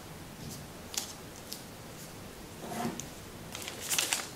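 Kami origami paper being handled and creased by hand: a few short crinkles and taps, then a louder rustle and a paper crackle near the end.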